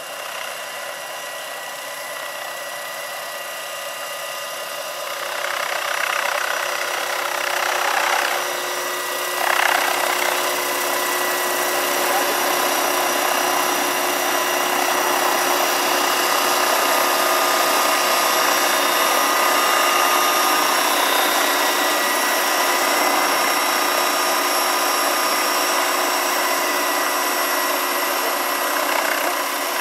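Large electric scale model Bell-212 helicopter in low hovering flight: the steady whine of its electric drive over the whoosh of the rotor. It grows louder about five seconds in as the model comes closer.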